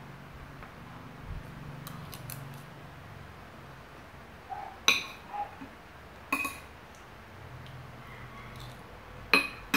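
Metal spoon clicking and scraping against a natto container while eating: a few sharp clicks, the loudest about five, six and a half and nine and a half seconds in, with fainter ticks about two seconds in.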